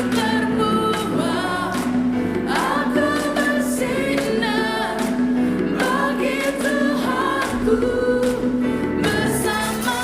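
Gospel worship song: lead vocals with a backing choir over a full band, with drum kit and cymbal hits running through it.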